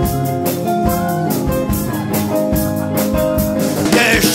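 Small band playing an instrumental passage: plucked three-string cigar-box guitar, archtop guitar and mandolin over a drum kit keeping a steady beat. The music changes abruptly near the end to a brighter, fuller passage.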